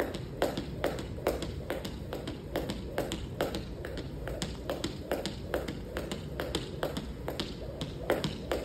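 Jump rope skipping on a wrestling mat: a thin cable rope ticks against the mat on each turn as the feet land, in an even rhythm of about two and a half taps a second.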